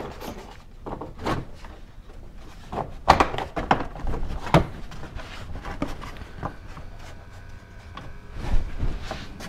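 Plastic cowl panel being pushed and clicked back into place in a car's engine bay: irregular hollow plastic knocks and clatter with rustling in between, the sharpest knocks about three and four and a half seconds in.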